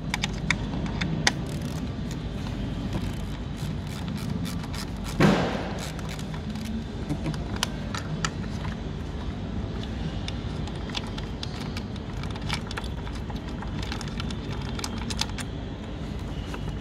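Hands working at a car ignition coil and its connector under the engine bay's plastic cowl: scattered small clicks and knocks, with one louder knock about five seconds in, over a steady low rumble.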